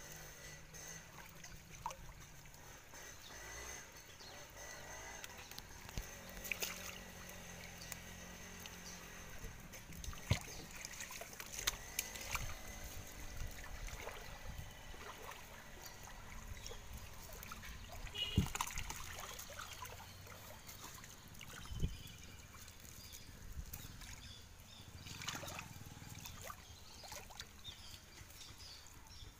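Shallow lake water splashing and dribbling as fish are worked free of a fishing net by hand. Irregular small splashes and clicks, with a few sharper, louder splashes or knocks, about a third of the way in, past halfway and about three-quarters of the way through.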